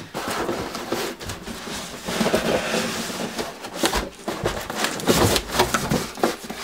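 Cardboard being handled: a smaller cardboard box scraping and rubbing against the inside of a large shipping box as it is lifted out, with flaps rustling and several knocks, one heavier about four seconds in.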